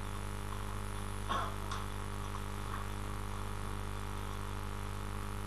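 Steady low electrical hum, with a couple of faint short noises about a second and a half in.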